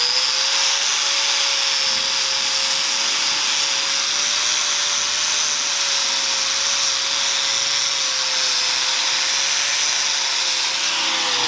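Corded DeWalt angle grinder grinding down the steel dust-cover sleeve on a stock front strut: a steady whine over the hiss of the disc on metal. It comes up to speed at the very start and begins to wind down near the end.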